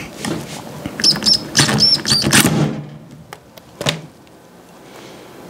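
DeWalt cordless drill-driver running in short bursts, backing a rusted, stuck pivot screw out of a pair of scissors: the screw is now turning free rather than shearing. Short high squeaks come with the drill about a second in, and a single sharp click follows near the end.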